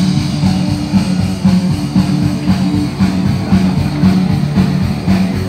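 Rock music with guitar and drums playing over a steady beat.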